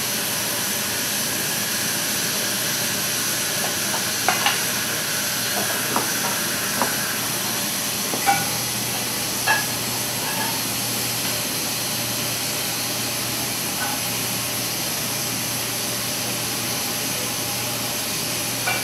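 Steady, loud rushing hiss of kitchen machinery or ventilation, with a handful of light clinks and knocks between about four and ten seconds in.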